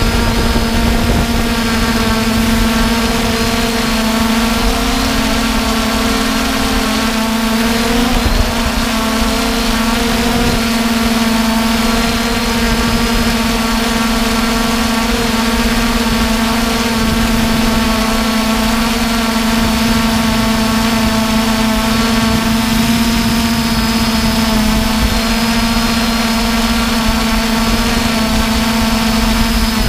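3DR Iris+ quadcopter's four brushless motors and propellers humming at a steady pitch, heard from the camera on the drone, with a rough low rumble underneath. The pitch wavers briefly about six seconds in.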